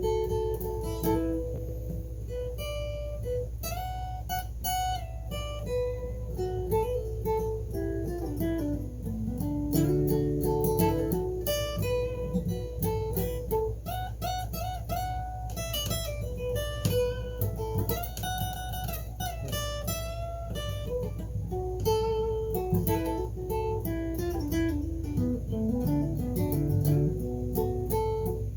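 Blues guitar solo: a single-note lead melody with some notes gliding up and down in pitch, over a steady low accompaniment.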